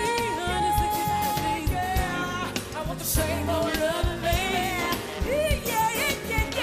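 Live soul performance: a woman sings sliding, melismatic runs into a handheld microphone over band accompaniment.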